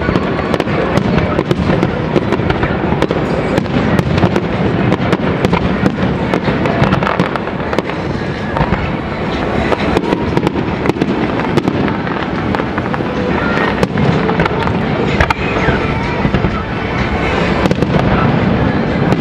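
Aerial fireworks display: many shell bursts, bangs and crackles in quick succession, one after another with no pause.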